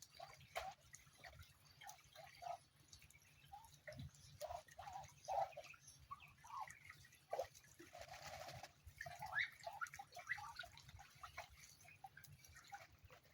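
Ducks swimming and dabbling in shallow water: faint, scattered drips and small splashes, with a longer wash of water about eight seconds in.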